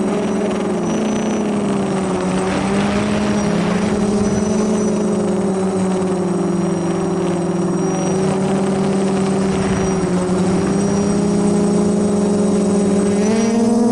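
DJI F450 quadcopter's four brushless motors and propellers humming steadily in flight, heard up close from the camera mounted on the frame. The pitch wavers slightly as the motors adjust and rises near the end.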